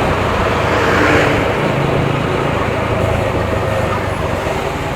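Motorcycle riding in city traffic: a steady engine hum under rushing road and traffic noise, briefly louder about a second in.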